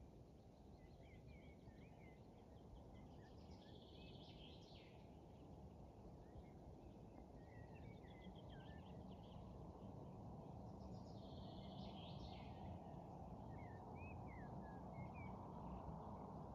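Faint birdsong over a low, steady background hum of open-air noise. One bird repeats the same trilled song phrase twice, several seconds apart, with scattered short chirps between.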